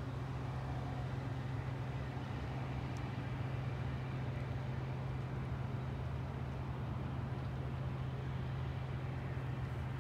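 Boat engine running steadily: a constant low hum over an even hiss.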